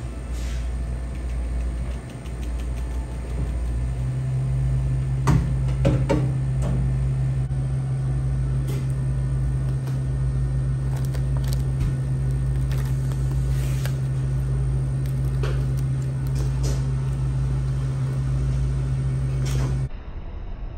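Steady low machine hum, joined about four seconds in by a louder low drone, with scattered clicks and knocks; it all cuts off suddenly shortly before the end.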